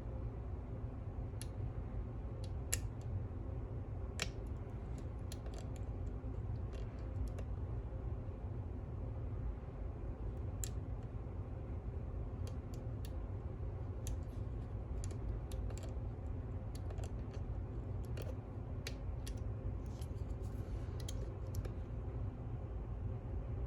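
Scattered small metallic clicks and ticks of a lock pick and tension wrench working the pins and sidebar inside a high-security pin-tumbler lock, as the picker checks a sidebar that isn't binding well. A steady low hum runs underneath.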